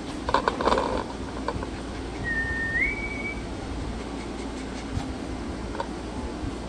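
A short whistle of two held notes, the second a step higher, after a brief clatter of clicks about half a second in, over a steady low hum.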